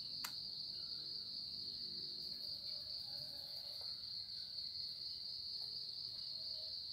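Steady high-pitched insect trill, with one faint click shortly after the start.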